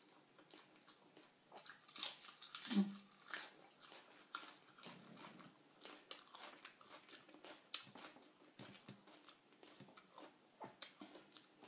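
Close-up mouth sounds of a person chewing and biting raw shrimp salad: irregular soft crunches and wet smacks, a little louder about two to three seconds in.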